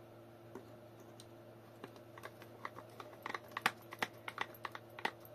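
Light, irregular clicks and taps of a screwdriver and screw working against the plastic mounting tab as the controller's second screw is lined up and driven in by hand, starting about two seconds in and growing busier, over a faint steady hum.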